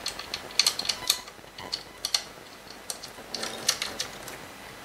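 Small bolts and metal parts clicking and clattering against the vacuum's housing as they are fitted by hand: irregular clusters of sharp clicks, with a denser run about three and a half seconds in.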